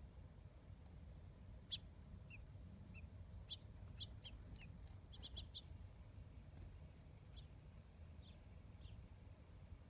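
Faint chirps from small wild birds: short, high calls scattered through, with a quick run of several together about five seconds in, over a low steady background hum.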